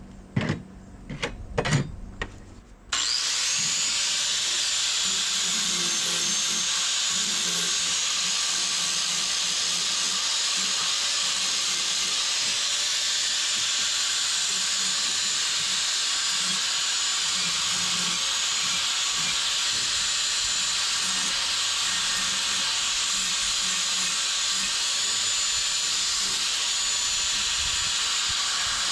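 A few sharp knocks, then about three seconds in an angle grinder starts and runs steadily against steel, grinding welds smooth on small angle-iron brackets with a constant hiss and a faint high whine.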